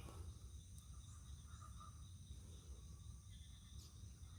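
Faint chorus of insects, several steady high-pitched trills over a low rumble.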